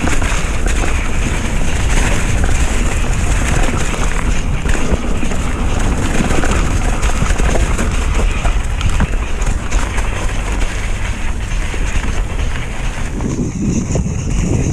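Loud wind buffeting on a rider-mounted microphone over the constant rattling and knocks of a mountain bike descending a rough downhill trail.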